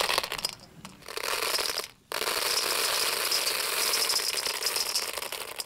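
Dried popcorn kernels pouring from a hand into a metal bowl of kernels, a dense rattle of many small clicks. It comes in handfuls: a short pour ending about two seconds in, then a longer, steady pour that stops just before the end.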